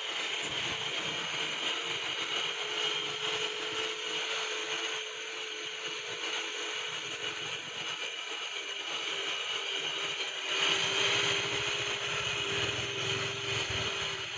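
Pedal-driven sharpening wheel spinning with a steady grinding hiss over a faint steady hum; the grinding grows louder about ten seconds in.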